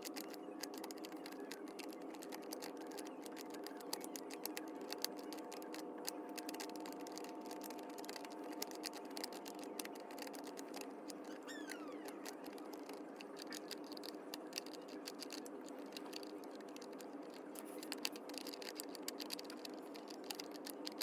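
Many quick, light plastic clicks and taps of LEGO pieces being slid and pushed around while working a LEGO sliding/Picross puzzle, over a steady background hum.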